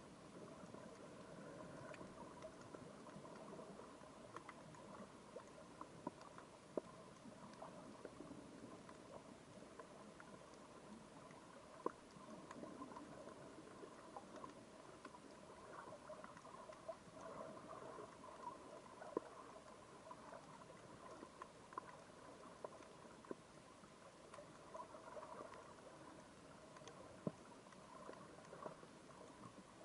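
Faint underwater crackle heard through a camera in its housing: scattered sharp clicks and pops at irregular intervals, a few louder than the rest, over a low steady hum.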